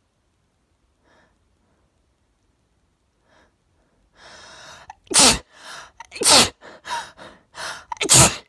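A woman's allergy sneezes: a few faint sniffs, then a long gasping intake of breath about four seconds in, followed by a run of sneezes. Three of the sneezes are loud, with smaller gasps and sneezes between them.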